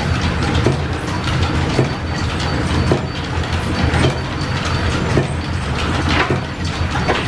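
Belt-driven lathe and line shaft machinery running steadily, with a steady mechanical clatter of gears and belts and a faint click about once a second.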